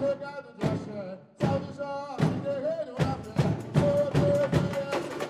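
Samba played by a samba school drum section: deep surdo strokes about every three-quarters of a second under a held melody line, with the other percussion filling in densely about three seconds in.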